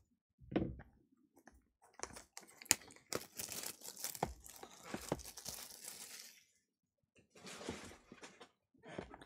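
Packaging on a sealed trading-card hobby box being torn and crinkled as the box is unwrapped and opened, with a knock about half a second in, a long spell of tearing and rustling after about two seconds, and a shorter rustle near the end.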